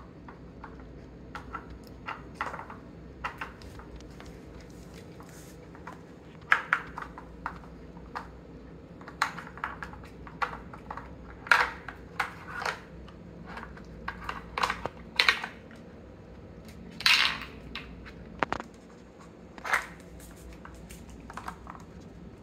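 Hard plastic pieces of a dog treat puzzle clicking, knocking and scraping irregularly as a Scottish terrier noses and paws its sliding covers and bone-shaped lifters, with the dog crunching treats in between.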